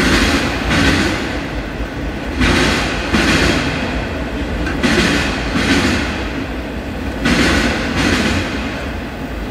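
Freight train of autorack cars rolling past, with a steady low rumble and the wheels clacking in pairs about every two and a half seconds. Each pair is the typical sound of the trucks at a car coupling crossing a rail joint.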